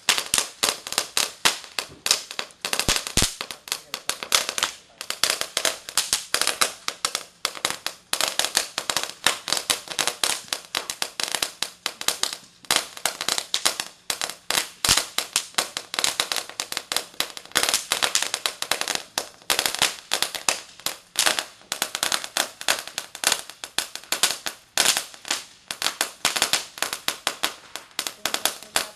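A Cracker Barrel crackling ground firework burning, giving off a rapid, uneven, unbroken string of small sharp pops and crackles.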